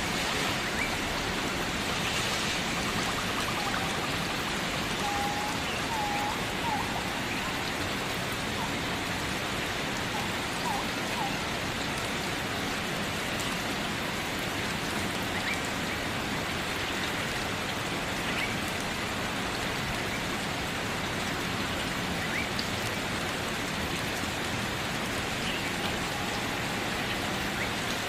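Steady rain falling and pattering on surfaces, an even continuous hiss with no let-up.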